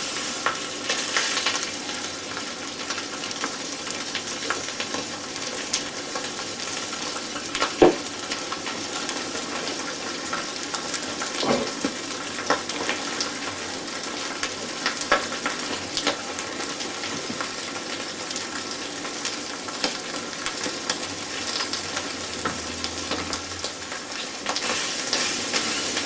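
Marinated skirt steak sizzling steadily in a hot cast-iron skillet just after being turned, with a few clicks of the metal tongs against the pan. The sizzle grows louder near the end as the steak is pressed down.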